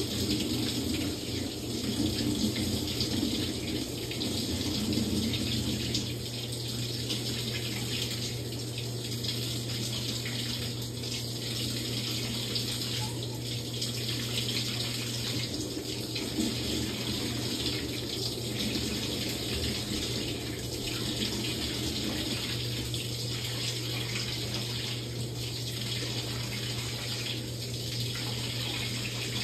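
Samsung top-load washing machine partway through a quick wash cycle: water running and splashing in the tub over a steady low hum.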